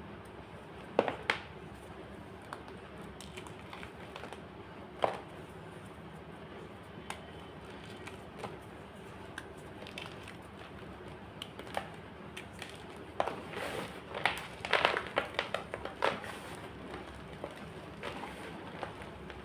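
White gym chalk being crushed: scattered sharp crunches and cracks a few seconds apart, then a quick run of them about two-thirds of the way through.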